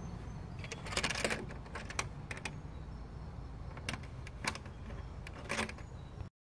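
Handling noise from a handheld phone being moved while filming: a steady low rumble with a few sharp clicks and rattles scattered through it, cut off abruptly near the end.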